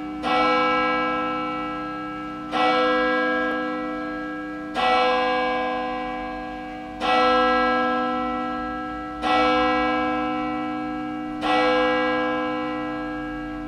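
A single large church bell tolling slowly, six strikes about two seconds apart, each ringing on and fading before the next.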